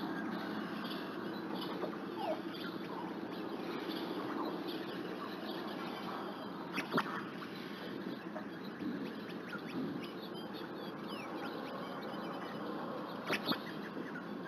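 Outdoor ambience of small birds chirping in the background over a steady outdoor hiss, with a sharp click about seven seconds in and two more near the end.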